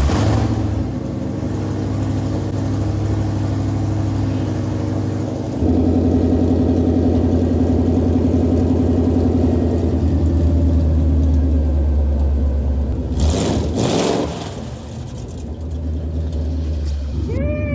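2011 Ford Mustang GT's 5.0 L V8 running just after start-up on open headers with no exhaust, very loud. It settles into a higher, steady drone some five seconds in, gives a quick rev, then drops back to a lower idle.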